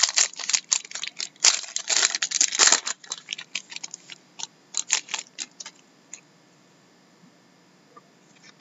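Foil trading-card pack wrapper being torn open and crinkled, a dense crackling for the first three seconds, then lighter scattered crinkles that die away about six seconds in.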